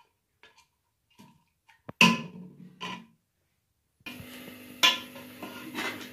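Steel ladle clanking and scraping against an aluminium pressure cooker pot as meat is stirred, with a loud clank about two seconds in and a smaller one a second later. From about four seconds in, a steady hiss runs beneath more clinks as the remaining liquid cooks off.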